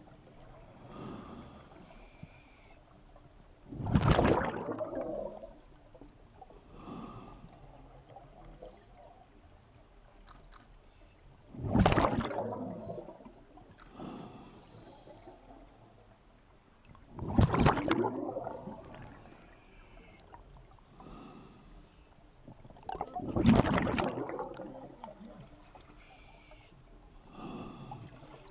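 A scuba diver breathing on an open-circuit regulator underwater. The exhaled bubbles gush out four times, about every six seconds, each lasting about a second, with fainter breaths drawn in between.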